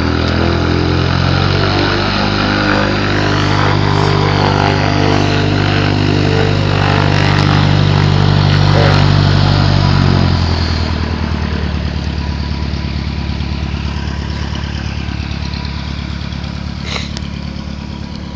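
Light propeller aircraft's piston engine running loud at a steady pitch, then fading gradually over the last eight seconds or so as it moves away.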